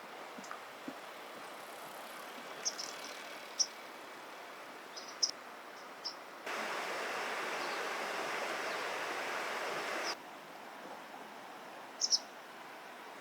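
Steady outdoor ambient hiss with a few short, high chirps scattered through it. A louder stretch of hiss about 3.5 s long starts suddenly a little past halfway and cuts off just as suddenly.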